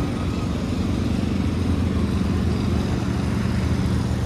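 An engine running steadily, a low even hum, heard over general street noise.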